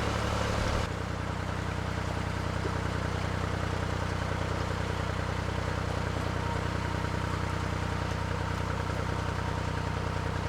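Narrowboat engine running at a steady cruising speed, an even low hum, stepping slightly quieter about a second in and then holding steady.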